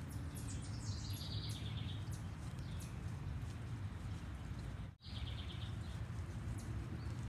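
A small bird chirping in quick runs of high notes, once near the start and again about five seconds in, over a steady low background rumble. The sound drops out briefly about five seconds in.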